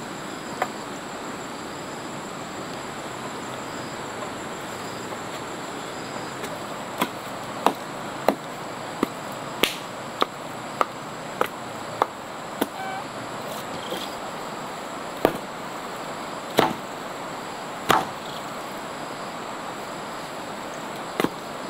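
Wooden poles being chopped with a hand blade. After a single stroke near the start, sharp chops come in a steady run of about ten, a little more than one a second, and then a few spaced further apart, over a steady background hiss.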